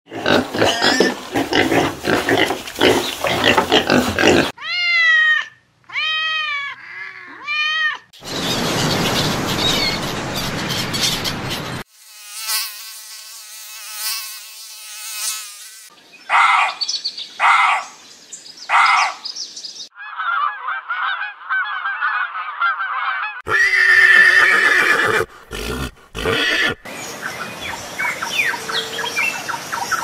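A run of short animal-sound clips cut one after another, a few seconds each: pigs grunting and squealing for the first four seconds or so, then a quick succession of other animal calls and noises.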